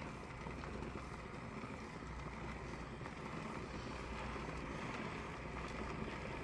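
Handheld garment steamer running as it steams a hanging shirt: a steady hiss, with a low hum that comes and goes every second or two.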